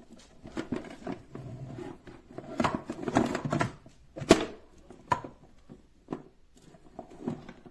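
Irregular handling noises of objects in a small room: rustling and light knocks, with one sharp click about four seconds in.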